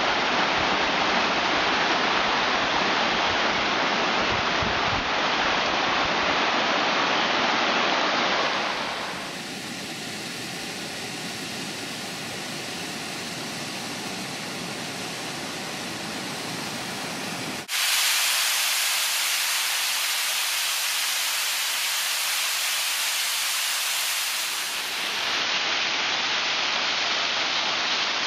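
Water rushing down a rocky mountain waterfall, a steady hiss of falling and splashing water. It turns quieter about eight seconds in and louder again with an abrupt change a little past halfway.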